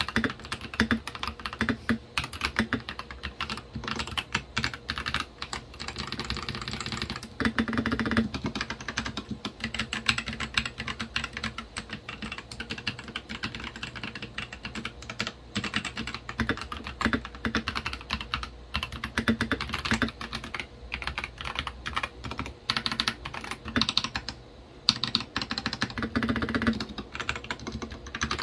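Fast, steady typing on a Royal Kludge RK98 mechanical keyboard fitted with pre-lubed Akko Lavender switches, foam dampeners and masking tape on the back of the board: a dense stream of key clacks, with a brief pause about 24 seconds in.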